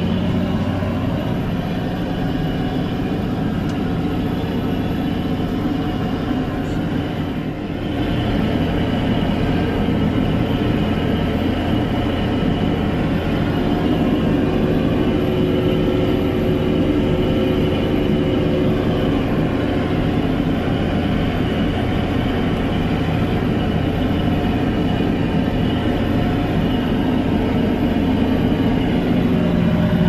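Fendt 924 Vario's six-cylinder diesel engine running steadily at about 1750 rpm, heard from inside the cab, under load while pulling a deep soil loosener. The sound dips briefly about seven seconds in.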